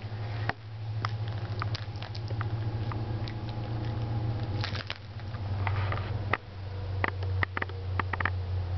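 Light clicks and taps of a chow chow's claws and snout on a tiled floor as it noses around, scattered and coming thicker near the end, over a steady low hum.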